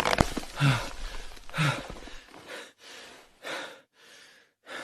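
Heavy gasping breaths, about one a second, the first ones with a slight voiced catch, growing fainter and further apart.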